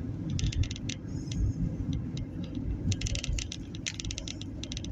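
Road noise inside a moving car: a steady low rumble with quick rattling clicks on top, thickest about three to four seconds in.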